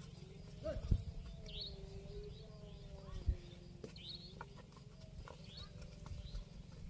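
Water buffalo in a pen giving one long, drawn-out moo lasting about four seconds, with small birds chirping now and then and a couple of dull knocks.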